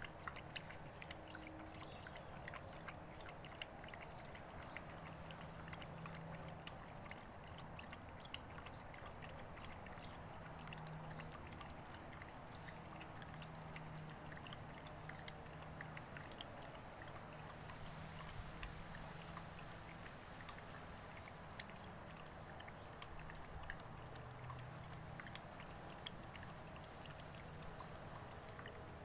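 Small terrier lapping chicken broth from a bowl: a steady run of small quick laps and clicks.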